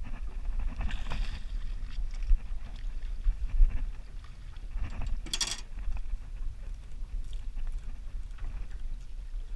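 Wind rumbling on the microphone and water moving around a small boat, with a short, sharp rush of noise about five seconds in.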